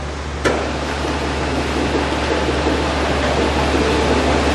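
A 304 stainless steel single-shaft double ribbon blender running, with a steady motor hum under the clatter of plastic balls being churned by the ribbon agitator in the steel trough. A single sharp knock comes about half a second in, after which the clattering gets louder.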